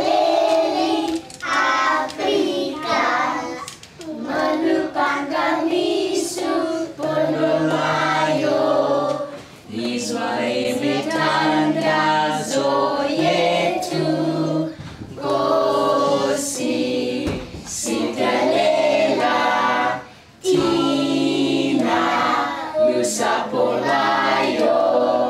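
A group of young children singing a song together with an adult leading, in phrases with short pauses between them.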